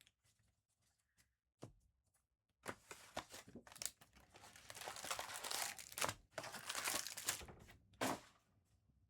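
Trading-card pack wrapper being torn open and crinkled: a few light clicks, then a few seconds of dense crackling ending in a sharp snap.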